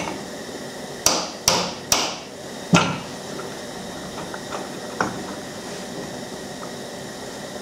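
Hammer striking the metal housing of a Sno-Way snow plow's DC motor to knock it apart during disassembly. There are four sharp metal knocks in quick succession starting about a second in, then a single lighter knock a little past the middle.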